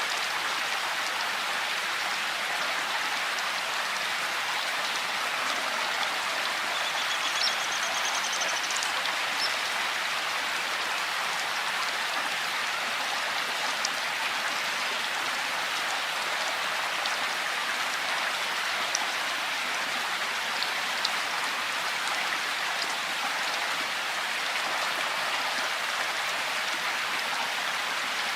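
Steady rain falling: an even hiss of rain with a few faint, separate drop ticks heard above it.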